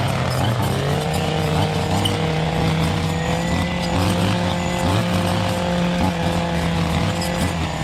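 Gas engine running steadily under load, its pitch stepping up slightly about a second in and then holding.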